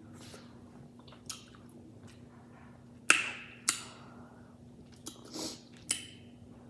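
Close-up wet chewing and lip smacking of a person eating saucy seafood-boil crab, with several sharp smacks, the loudest about three, four and six seconds in. A faint steady hum runs underneath.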